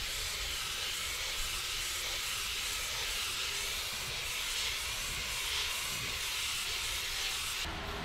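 Compressed-air paint spray gun hissing steadily as it sprays paint onto a truck cabin panel. The hiss cuts off abruptly near the end.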